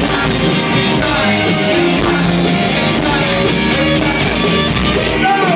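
Live rock band playing loud: electric guitars, bass and drums with a male singer at the microphone, heard from the audience.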